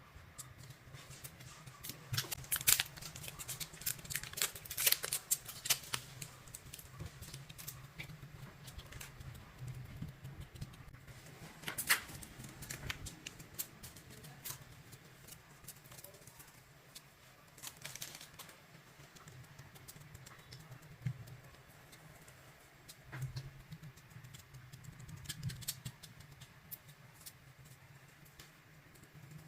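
Irregular small clicks and crackles from hands working craft materials, in clusters, over a faint steady low hum.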